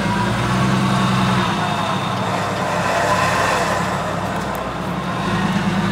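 Nissan Frontier pickup's engine running steadily at low revs, a low hum, as the truck sits perched on concrete culvert pipes on an off-road obstacle.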